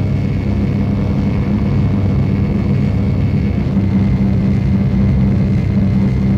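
Loud, steady industrial noise music: a dense low drone with a faint thin high tone above it.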